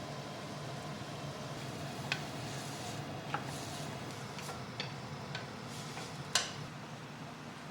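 A handful of sharp, irregularly spaced clicks or taps over a steady low hum, the loudest click a little past the middle.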